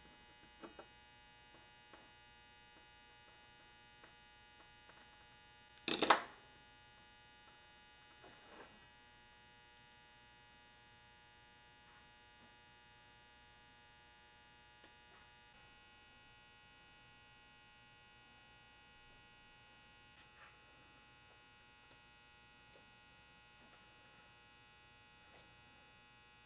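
Faint steady electrical hum made up of many thin tones, with scattered small clicks of tools and wire being handled on a workbench. One loud, short knock about six seconds in, and a softer one a couple of seconds later.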